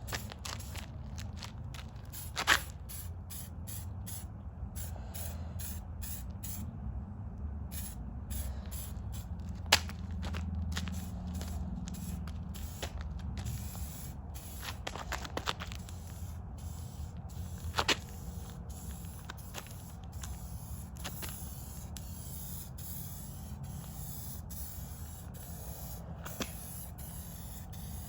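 SprayMax activated aerosol can spraying automotive paint in short passes, its hiss starting and stopping many times. A few sharp clicks stand out, over a steady low hum.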